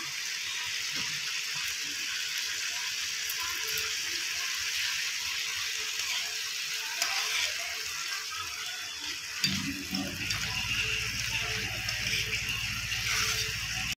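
Chickpeas in spice masala sizzling in a nonstick frying pan while a steel spoon stirs them, clicking and scraping against the pan. A low steady hum comes in about nine and a half seconds in.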